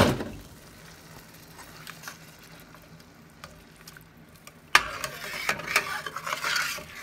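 A spatula stirring and scraping a thick, bubbling milk-and-flour sauce against a stainless steel skillet, loudest and steadiest from a little before the last two seconds; a short splash-like burst sounds at the very start.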